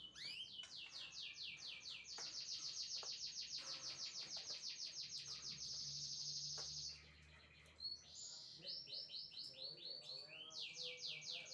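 Asian pied starling (jalak suren) singing: a long fast run of high repeated notes, about nine a second, breaking off about seven seconds in, followed by shorter runs of similar notes.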